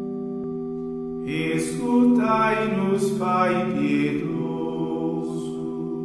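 A steady held chord, with a voice singing a phrase of a Portuguese liturgical hymn over it from about a second in to about four seconds in.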